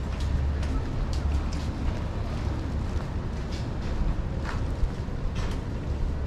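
Outdoor city street ambience: a steady low rumble with scattered short clicks and taps.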